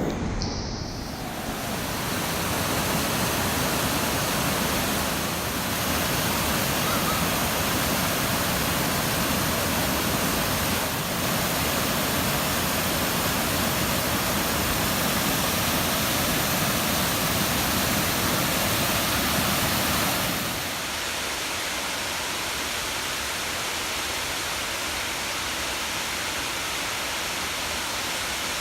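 Waterfall rushing: a steady, even noise of falling water. About 20 seconds in it becomes a little quieter and thinner, with less low rumble.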